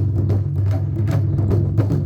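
Taiko drumming: rapid, sharp stick strikes over a continuous low drum tone.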